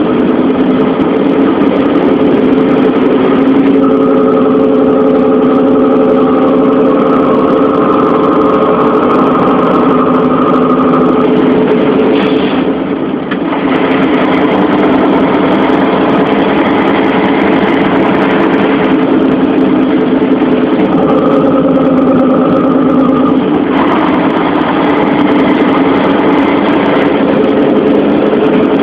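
Engine of a heavy grain-hauling farm vehicle running steadily under way. Its note shifts a few times, with a short dip about twelve seconds in.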